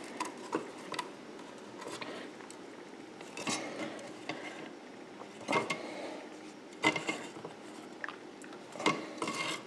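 Light metal clicks and scrapes as a steel EMT set-screw connector is turned by hand in the knockout of a steel electrical box, being locked down. The clicks come irregularly, a handful of them, each short.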